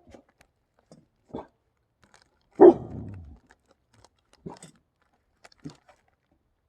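An unidentified animal giving four short calls a second or two apart, the second much the loudest and longest; the recordist cannot tell whether it is a bird or a coyote.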